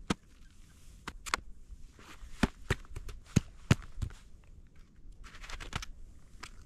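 Pulk sled hauled over crusted snow: scattered sharp knocks and clicks, a few close together, with a short scraping swish about five seconds in.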